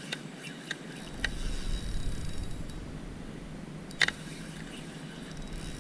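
Ryobi spinning reel under load from a hooked fish, giving a few scattered sharp clicks, the loudest about four seconds in. A low rumble joins in about a second in.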